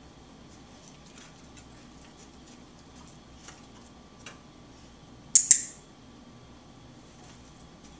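Dog-training box clicker giving one sharp double click, press and release, about five seconds in, marking the behaviour in a shaping session. Two faint ticks come a second or two before it.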